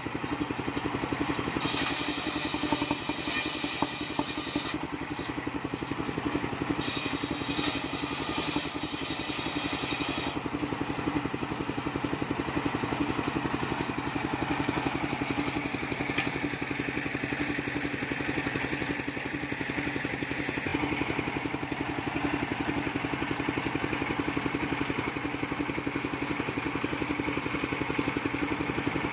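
Engine-driven mobile circular saw bench running steadily with a constant hum. The blade's sharper, hissing cut through waru wood comes in during two stretches in the first ten seconds, then the saw runs on more evenly.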